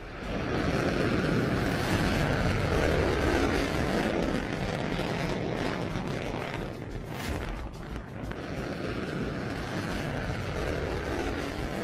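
Qaem-100 solid-fuel rocket motor at liftoff: a loud, steady rushing noise that starts just after the opening and eases slowly as the rocket climbs away.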